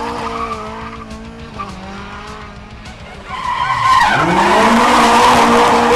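Race car engine running hard and fading away, then revving up again and getting much louder about three seconds in, with tyre skid noise.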